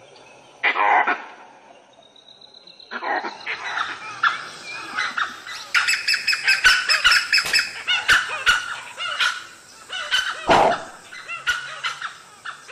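A pack of dholes (Indian wild dogs) yelping and chattering in a dense high-pitched chorus from about three seconds in, calling at a leopard they have treed. A single loud harsh call about a second in, and another near ten seconds.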